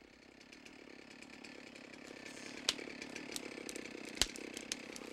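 Two-stroke brush saw (clearing saw) engine running steadily, growing louder over the first couple of seconds. Two sharp cracks of wood snapping, about two and a half and four seconds in, as a cut tree is pushed over on its hinge.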